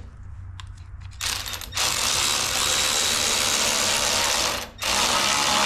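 A power tool tightening a hose clamp on an intercooler pipe coupler, running in one long burst of about three and a half seconds, stopping briefly, then starting again near the end.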